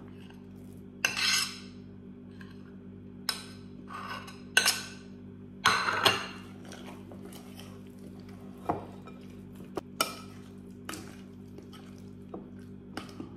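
Metal spoon scraping grated cheese off a plastic plate and stirring it into thick batter in a glass mixing bowl: irregular scrapes and clinks of the spoon against the glass, the loudest about a second in and around four to six seconds in. A steady low hum runs underneath.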